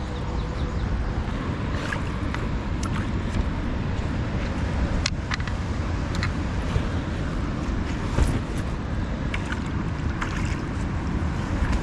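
Steady rushing noise of wind buffeting the microphone and river water, with scattered short clicks and taps over it.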